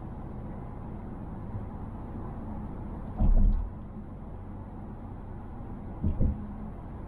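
Steady road and tyre noise inside the cabin of a 2020 Mazda Atenza (Mazda6) 2.5 L saloon at speed. About three seconds in there is one short low thump, and about six seconds in a quick double thump, as the body is jolted.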